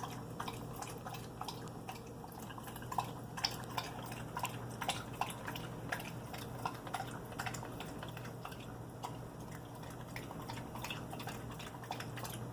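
A dog lapping up chicken soup from a bowl: quick wet licks and clicks, a few each second, irregular.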